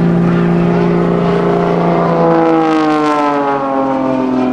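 Aerobatic propeller plane's piston engine droning overhead, its pitch falling steadily from about two seconds in as it passes by.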